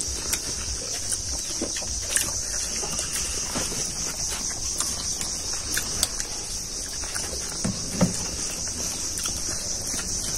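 Steady high-pitched chorus of insects, with scattered short clicks and smacks of people eating by hand from steel plates and a spoon in a glass bowl.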